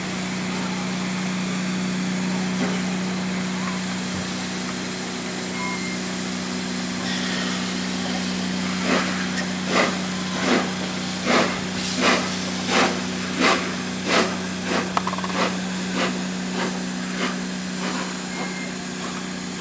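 Peppercorn A1 Pacific steam locomotive 60163 Tornado moving off with its train. A hiss of steam comes in about seven seconds in, then from about nine seconds a run of sharp exhaust chuffs that quicken from about one a second to nearly two and fade near the end. A steady low hum runs underneath.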